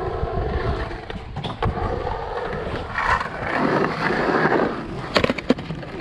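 Skateboard wheels rolling and carving on the concrete bowl, with a rumble that swells for a second or so in the middle, then a quick run of sharp clacks from the board near the end.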